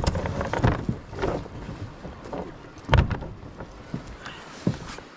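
Several hollow knocks and thumps of fishing gear being handled against a kayak's hull as a folded crab trap, float and dive reel are stowed, with wind buffeting the microphone.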